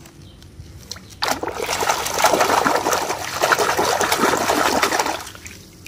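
Hand splashing and swishing rapidly in water, washing the mud off a toy. The splashing starts about a second in, stays loud, and dies away near the end.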